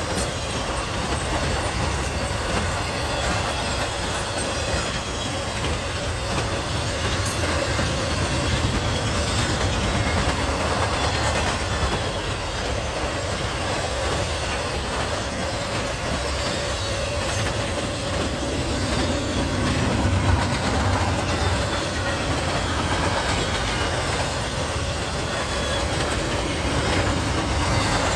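Intermodal freight train cars rolling past, with no locomotive among them: steel wheels rumbling on the rails and clicking over joints in a steady clatter.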